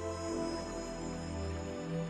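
Soft background music with sustained, held chords.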